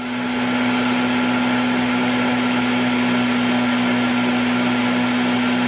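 Ninja food processor spinning up, then running steadily at one pitch, with hot soapy water churning in its bowl: a rinse to clean out the bowl and blade.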